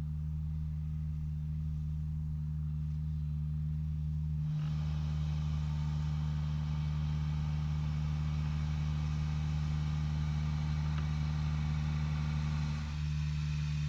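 Steady low hum of vehicle noise, joined from about four and a half seconds in until near the end by a broader rushing sound.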